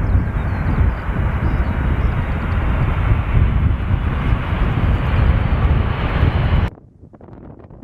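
Loud jet noise from an Airbus A380's four turbofan engines passing close by, a steady heavy rumble. It cuts off abruptly near the end, leaving faint wind noise.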